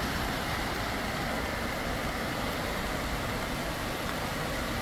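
Steady rush of stream water pouring over a low concrete weir, mixed with the low rumble of road traffic on the bridge.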